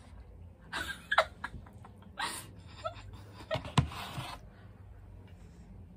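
Short breathy mouth sounds from people eating hot, spicy noodles: a few scattered bursts, with a sharp click just after a second in.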